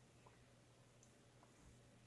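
Near silence: room tone with a faint steady hum and a few tiny faint ticks.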